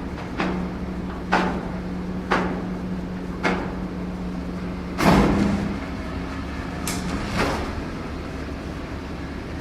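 A radio-controlled excavator's small electric hydraulic pump hums steadily and stops after about seven and a half seconds. Over it come seven sharp knocks at uneven intervals, the loudest about five seconds in.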